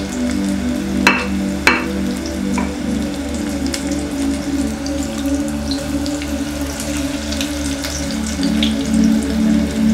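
Flour-battered broccoli pieces deep-frying in a pot of hot oil: a steady bubbling sizzle with scattered crackles, and two sharp pops a little over a second in. Background music with a steady low beat plays underneath.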